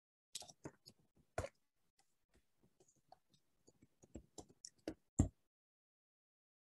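Irregular clicks and taps on a laptop, a dozen or more spread over about five seconds, the loudest near the end, then they stop.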